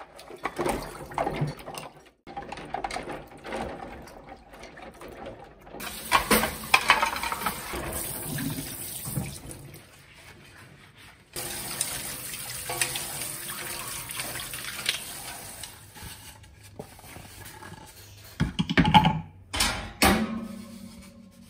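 Kitchen tap running water into a sink while things are rinsed under it, with a brief break in the flow near the middle. Knocks and clatter of items being handled come at the start, and louder thuds come near the end.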